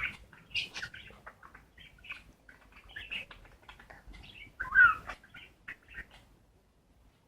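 Pet budgerigars chattering: a run of short chirps and clicks, with one louder call about five seconds in.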